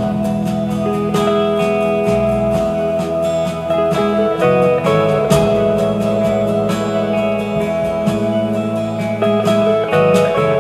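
Guitar-led recorded music played through Pioneer SP-BS22-LR bookshelf speakers, driven by an Elekit TU-870 stereo tube amplifier built on 6BM8/ECL82 valves.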